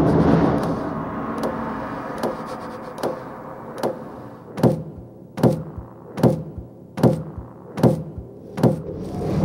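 Percussion in the dance score: a low drone fades out while a deep drum beat repeats about once every 0.8 seconds, each beat louder than the last.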